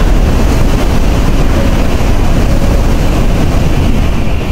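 Shinkansen train running along the platform at Himeji Station: a loud, steady rush of wheel, rail and air noise that eases off right at the end.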